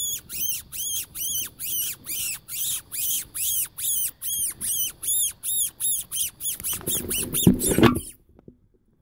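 A long, regular run of high-pitched squealing calls, each rising then falling in pitch, about three a second. Near the end comes a short, loud low rumble like wind or handling on the microphone, then the sound cuts off.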